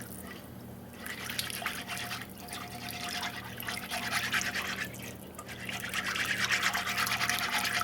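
Rice and tomato paste being stirred in a cooking pot: wet scraping and sizzling noise that comes and goes in stretches of about a second.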